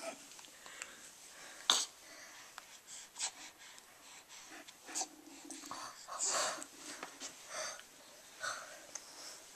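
Young baby breathing noisily in short wheezy breaths, with small breathy vocal sounds and one sharp click about two seconds in.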